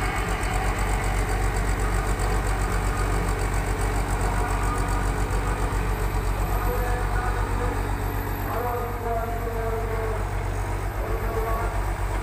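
Tata Hitachi excavator's diesel engine running steadily with a rapid low throb as the machine works its boom and swings a bucket of sand; a higher whine joins about eight seconds in.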